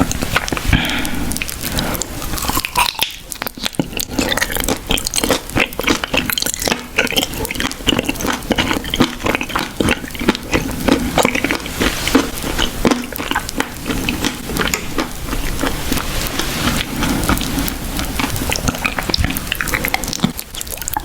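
Close-miked ASMR eating: wet chewing and biting, with a dense run of small clicks and crackles throughout.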